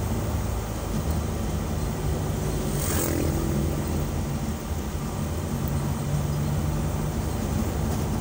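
Vehicle engine running with steady road noise, heard from inside the cabin while driving. A brief louder sound comes about three seconds in.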